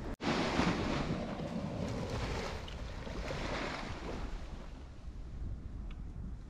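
Ocean surf washing on the beach, swelling for a few seconds after a brief cut in the sound near the start and then fading, with a low rumble of wind on the microphone throughout.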